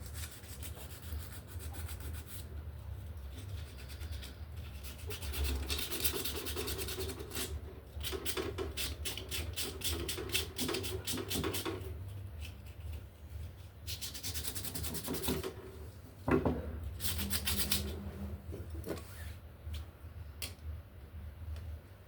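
Rapid back-and-forth rubbing and scrubbing strokes on a paint gun part, coming in bursts, with a single sharp knock about sixteen seconds in.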